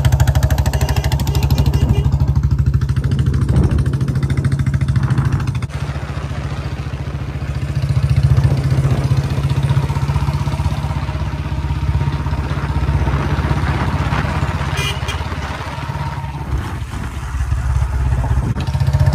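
Motorcycle engine running steadily as the bike rides along at cruising speed, heard from on or beside a moving bike. The level drops abruptly about six seconds in and swells again near eight seconds and near the end.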